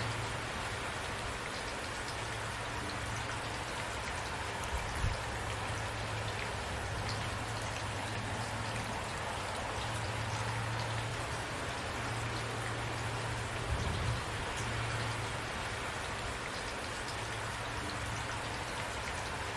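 Steady rain falling, with individual drops ticking on a surface. A couple of low thuds come about five seconds in and again near fourteen seconds.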